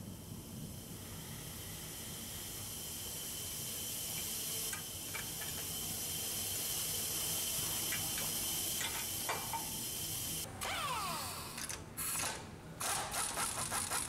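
A steady hiss that slowly grows louder over about ten seconds, then a pneumatic tool running in several short chattering bursts near the end, working the sway bar link.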